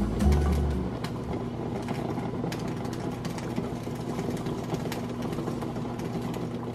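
Background music ends in the first second, giving way to a steady low hum with an even hiss.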